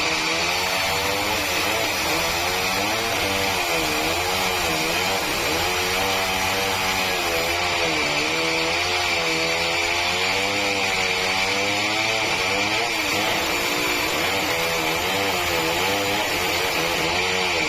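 Sawmill cutting a large Meranti log: a motor runs steadily, its pitch rising and falling every second or two as the blade takes the load, over a steady high whine.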